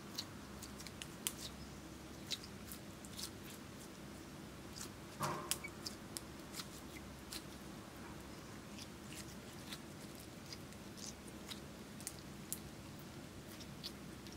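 Glossy slime with glitter and crushed makeup mixed in, kneaded and stretched by hand: scattered sticky clicks and small pops over a faint steady hum, with one louder squelch about five seconds in.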